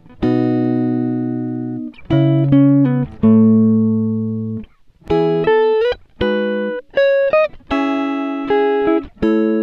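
Background music: plucked-string notes and chords, each struck sharply and fading, some sliding up in pitch.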